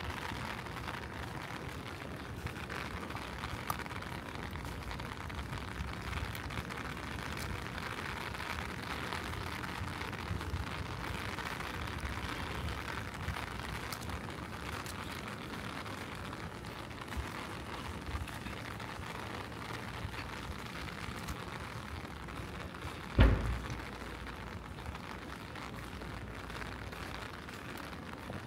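Steady rain falling, with scattered fine drips. Late on, a single loud low thump stands out.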